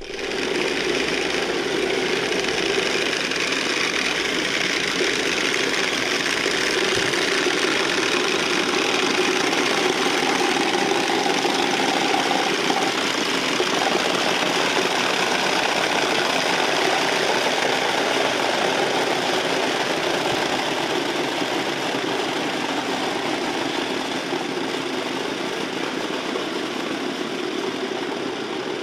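Wooden Easter rattles (Klappern) worked by a group, giving a continuous dense clatter of rapid wooden clacks that eases slightly near the end.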